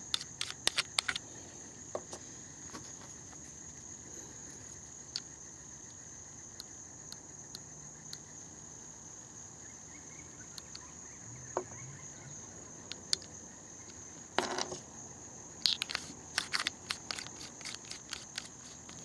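A steady high-pitched insect trill, crickets, runs throughout. Scattered sharp clicks and knocks come as a hand works the adjustment knobs of a rifle scope: a quick run of clicks at the start and another cluster near the end.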